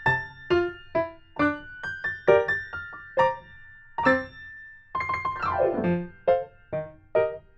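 Background music: a light electric piano melody of single struck notes that ring and fade, with a quick downward run of notes about five seconds in.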